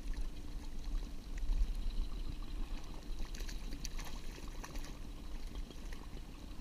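A hooked fish splashing and thrashing at the water's surface beside a small boat as it is reeled in, with the splashing busiest in the middle of the stretch, over a steady low rumble.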